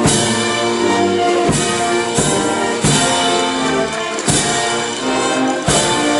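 Procession band playing a march: brass holding full sustained chords over a drum struck on a steady beat.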